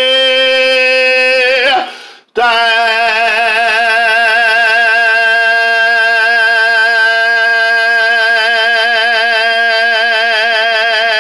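A man singing a high sustained note. He holds one plain note, breaks off briefly just before the two-second mark, then holds a long final note with a wide, even vibrato, with a steady lower tone beneath.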